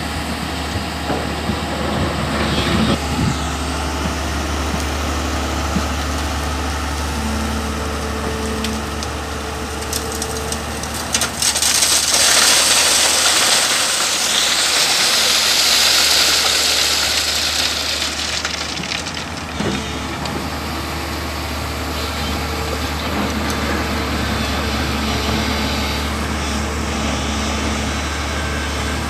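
Crawler excavator's diesel engine running steadily under hydraulic work. About twelve seconds in, a bucketload of river stones and gravel pours onto a steel mesh screen with a loud rattling rush lasting some six seconds.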